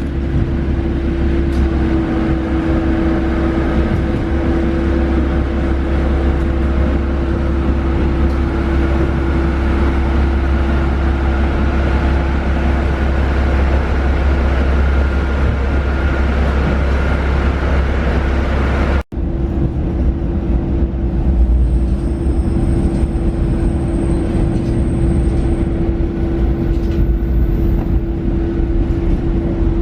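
Train running sound: a loud, steady low rumble with a steady hum over it. It breaks off abruptly about 19 seconds in at an edit and resumes, with a faint high whine for a few seconds after.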